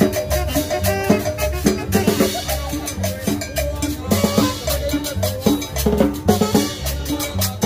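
Upbeat Latin dance music from a street band, with a steady beat of drums, cowbell and bass.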